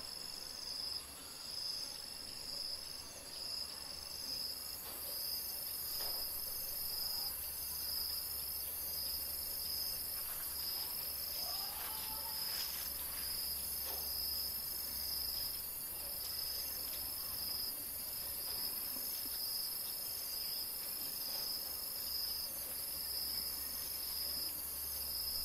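Insects calling outdoors: a shrill trill that pulses about once a second over a higher steady hiss, which grows louder about four seconds in.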